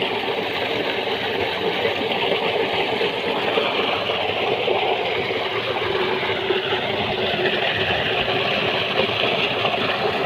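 Water gushing steadily from a solar-powered tubewell's outlet pipe into a concrete channel, a constant rushing noise.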